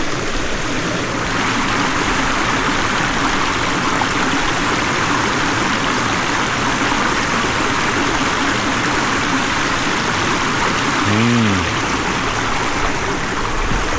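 A mountain stream rushing steadily over rocks, a loud, even sound of flowing water. A man's voice makes a short sound about eleven seconds in.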